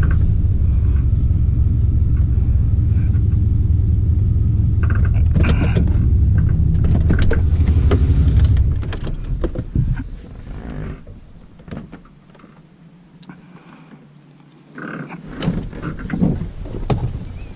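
Vehicle engine running, heard from inside the cab, then shut off about halfway through. Scattered clicks and knocks follow.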